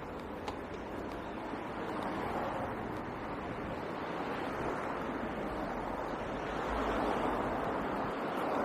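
Steady rush of road traffic, a continuous noisy roar that swells and ebbs as vehicles pass and grows louder near the end.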